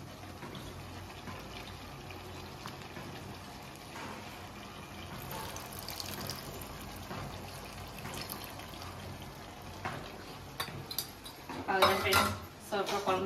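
Tamarind water poured in a thin stream into a steel pan of cooked black-eyed peas and bottle gourd, a soft liquid pour that is stirred in.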